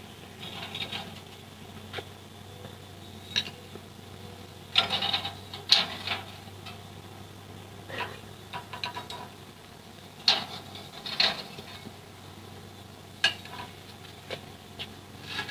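A kitchen utensil stirring and scraping in a pan, with scattered sharp clinks against the metal, over a faint steady low hum.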